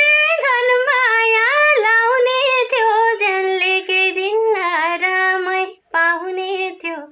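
A high voice singing a Nepali song in long held, wavering notes with hardly any accompaniment. The pitch steps down over the phrase and breaks briefly near the end.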